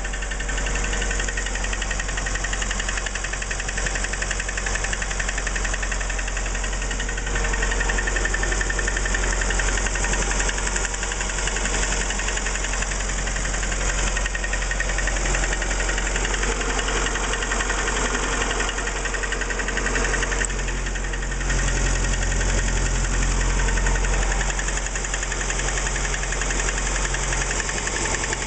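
VAZ-11194 1.4-litre 16-valve four-cylinder engine running with a rapid, steady knock from the connecting-rod and piston group (ШПГ), the classic knock of a worn bottom end.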